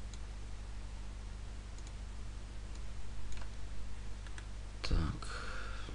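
A few faint computer mouse clicks over a steady low electrical hum, with a brief louder thump and rush of noise about five seconds in.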